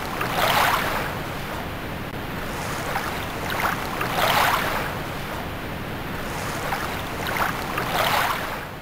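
Ocean surf: waves washing in, swelling three times about four seconds apart.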